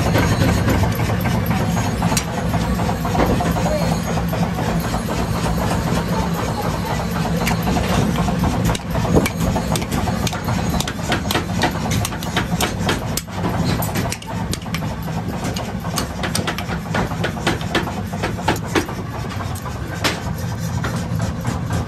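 A steady, low, engine-like machine hum in a forge workshop, with many irregular sharp metal clinks and knocks, thickest through the middle.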